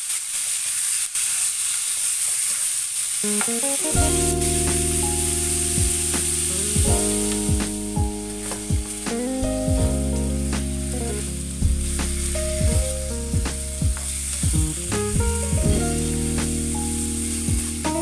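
Pork cubes sizzling as they sear in a hot nonstick frying pan, with the scrape and tap of a spatula stirring them. Soft background music with long held notes comes in about four seconds in.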